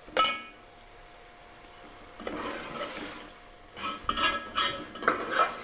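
Metal spoon stirring and scraping thick meat-and-tomato masala in a metal pot as it is fried down. There is a sharp ringing clink of spoon on pot just after the start, then scraping partway through, and a run of quick knocks and scrapes near the end.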